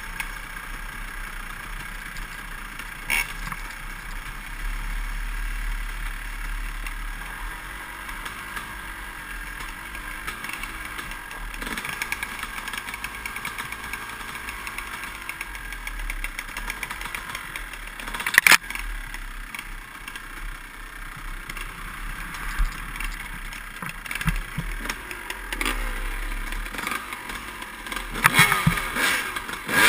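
Dirt bike engine running on a rough forest trail, with rattles and knocks from the bike over the ground. There is a sharp knock about 18 seconds in and a burst of clatter near the end.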